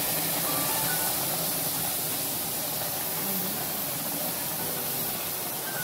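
Hot milk poured into semolina roasted in ghee in a large wok, hissing and sizzling steadily as it steams. This is the milk going into the roasted rava when making rava sheera (sooji halwa).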